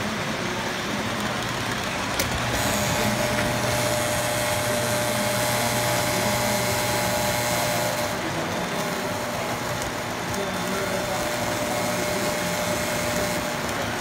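Lionel O-gauge model train running along three-rail track: a steady rolling rumble, with a steady higher hum setting in about two seconds in.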